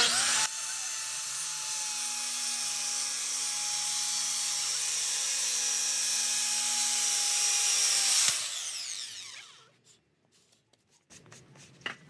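Handheld circular saw spinning up and cutting through a sheet of wood with a steady high whine, then spinning down with a falling whine about eight seconds in once the cut is through.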